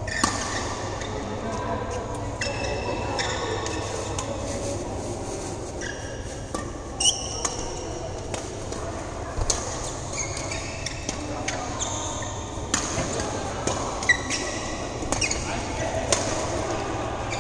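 Badminton rackets striking shuttlecocks in an irregular series of sharp cracks, with sneakers squeaking briefly on the court mats, echoing in a large hall. Indistinct voices and a steady low hum run underneath.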